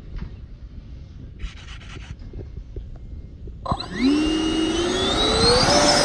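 Electric ducted-fan motors of an F-22 Raptor RC model jet spooling up for takeoff. It starts abruptly about two-thirds of the way in as a whine that rises steadily in pitch over a rushing noise, levelling off near the end. Before that there is only light wind and a few faint rustles.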